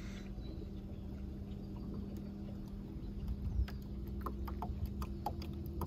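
WaterSnake ASP24 12-volt electric trolling motor running on its lowest forward speed with a faint steady hum as the kayak moves off from a standstill. From about three and a half seconds in, small water splashes and drips patter irregularly against the hull.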